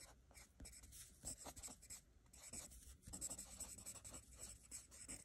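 Pen writing on lined notebook paper: faint scratching strokes, with a brief pause about two seconds in.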